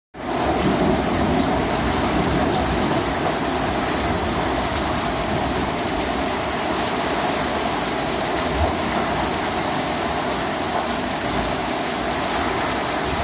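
Heavy rain falling steadily during a thunderstorm, a continuous even hiss.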